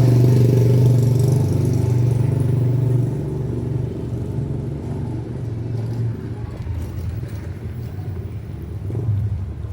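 A motor vehicle's engine running close by with a low hum, loud for about the first three seconds, then fading as it moves away.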